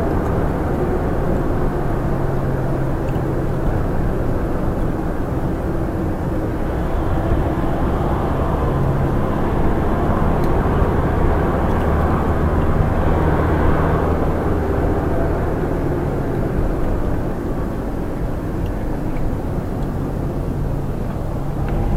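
Steady engine and road noise of a moving vehicle, heard from inside it as it drives, with a low hum that grows a little louder in the middle and eases off near the end.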